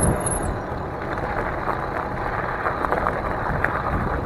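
Wind buffeting the microphone and tyre rumble as an electric bike rolls steadily over pavement.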